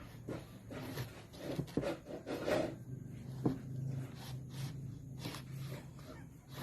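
Kitchen knife cutting a bell pepper on a chopping board: irregular knocks and slicing strokes.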